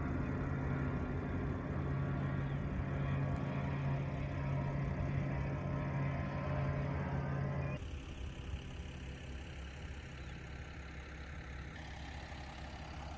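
Campervan engine and road noise while driving, a steady drone. About eight seconds in it cuts to a quieter, lower drone.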